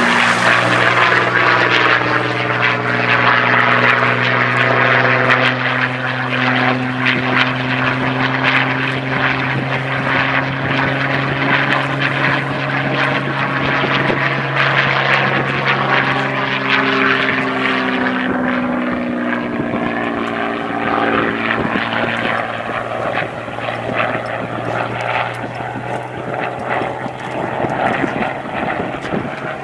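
Hawker Hurricane's Rolls-Royce Merlin V12 engine and propeller droning steadily as the fighter makes a display pass overhead. The pitch shifts as it passes, and it grows a little quieter in the second half.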